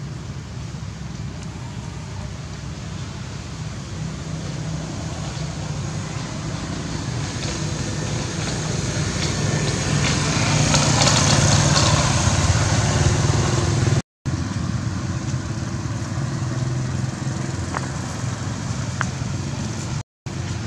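Motor vehicle traffic noise: a steady low engine rumble with road hiss. It grows louder to a peak about ten to thirteen seconds in, then eases, and cuts out briefly twice.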